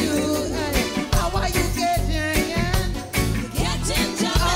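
Background music: a song with a singing voice over a steady, upbeat beat.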